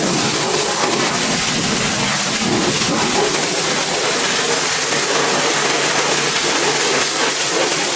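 Pressure washer spraying water in a steady hiss, with a low motor hum joining about five seconds in.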